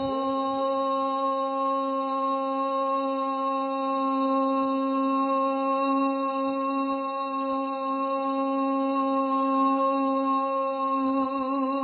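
A male reciter holding one long sung note at a steady pitch through the whole stretch, with a wavering vibrato coming back near the end.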